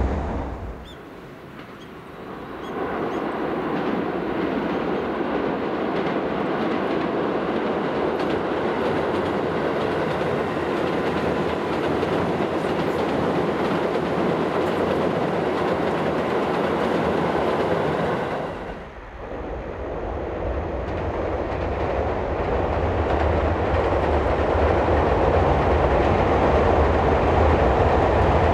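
Tobu Railway 9000 series electric commuter train running along the line with a steady train noise, and after a short drop about nineteen seconds in, a Tobu Railway 30000 series electric train.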